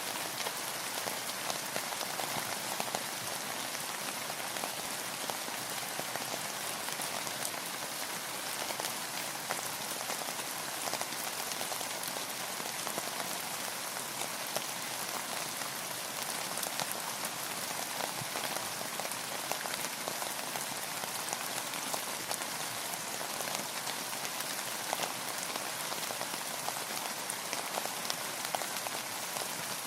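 Steady rain falling on a surface: an even hiss of rain with many small drop patters.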